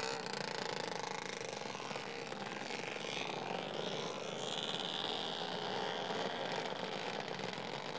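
Engine sound effect for small quad bikes running on a warm-up lap: a steady, dense motor drone, with a higher whine coming in about halfway through.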